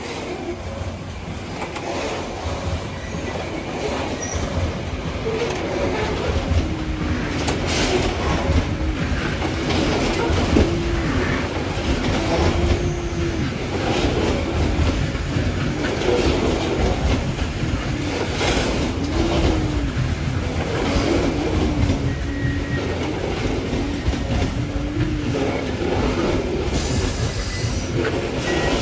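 Loaded freight wagons of a coal train rolling past. The wheels knock over the rail joints, a low rumble runs throughout, and a wavering squeal comes back every couple of seconds.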